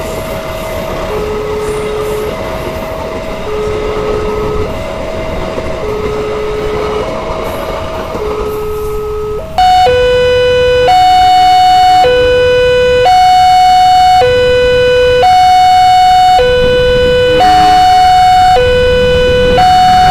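Railway level-crossing warning siren: an electronic two-tone alarm alternating a higher and a lower tone, each held about a second. About halfway through it switches abruptly to a louder, clearer two-tone alarm of the same pace at a slightly different pitch.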